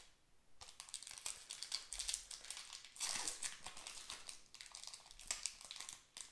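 Crinkling of a trading-card booster pack's foil wrapper being handled as the cards are pulled out, with irregular small crackles and rustles that start about half a second in.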